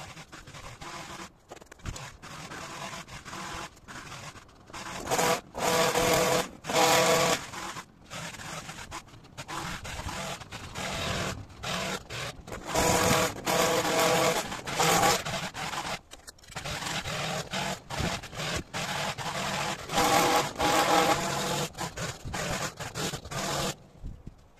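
Powered hedge trimmer cutting a hedge, running in repeated bursts of about one to two seconds with short pauses as the trigger is worked on and off.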